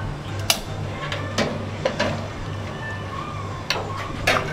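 Kitchen clatter of stainless pots, ladle and bowls at an udon noodle station: a handful of sharp metal clinks and knocks as a bowl of noodles is filled, over a steady low hum.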